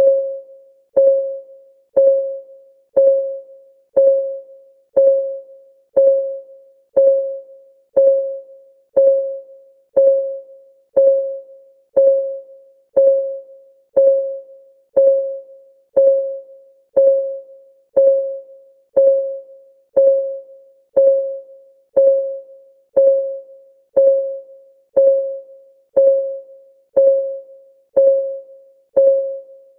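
Countdown timer's ticking clock sound, one steady tick a second. Each tick is a short pitched knock that dies away quickly.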